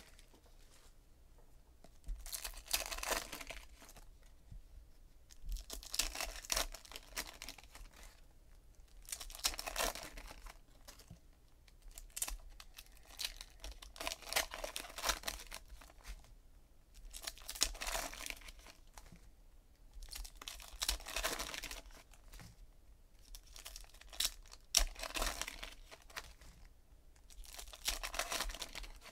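Trading cards and their foil pack wrapping rustling and crinkling as they are handled and slid through the hands, in short swishes about every three to four seconds.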